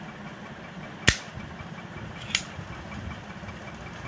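Two sharp clicks of the metal M226 Titan sound pistol being handled, the first about a second in and the louder, the second over a second later, over a steady low hum.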